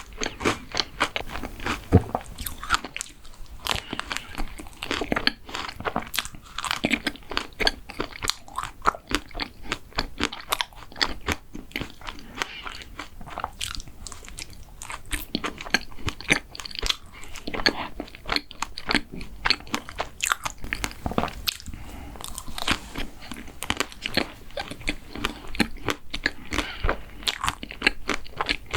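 Close-miked eating sounds of mint-chocolate desserts: crisp crunches and bites, several a second, with chewing in between, going on without a break.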